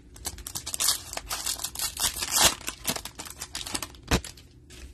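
Wrapper of a trading-card pack crinkling and tearing as it is opened by hand, a fast run of crackles, then one sharp click near the end.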